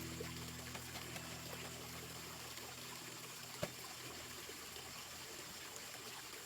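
Water trickling steadily in a backyard fish pond, with a single sharp click about three and a half seconds in. Background music fades out over the first few seconds.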